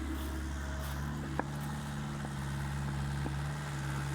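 Mini excavator's diesel engine running steadily, with one sharp knock about a second and a half in.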